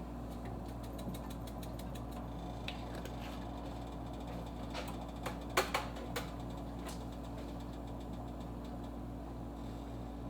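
Steady low hum, with a handful of sharp clicks and taps about halfway through from spice containers and a measuring spoon being handled while seasoning a pot of soup.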